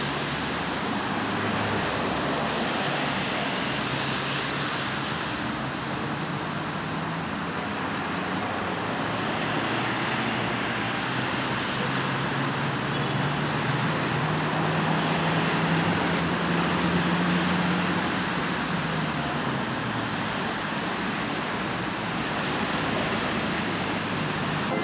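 Steady outdoor rush of traffic and vehicle noise, with a low engine hum that swells and rises slightly about two-thirds of the way through, then fades.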